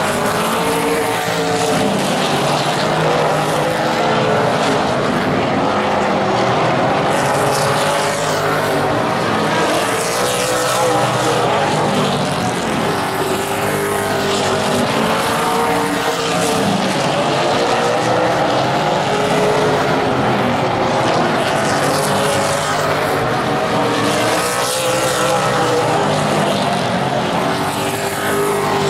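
Super late model race cars' V8 engines running on the track at racing speed, a continuous roar whose pitch rises and falls again and again as the cars go through the turns and down the straights.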